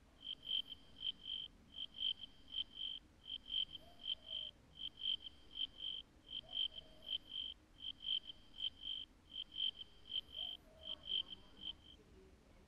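Cricket chirping: a single high-pitched note pulsed in short trains of four or five, about one train every second and a half, stopping near the end.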